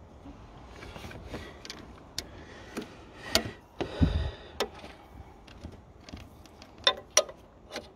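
Socket and ratchet tightening the nut on an alternator's terminal stud: irregular metal clicks and clinks, with one dull knock about four seconds in.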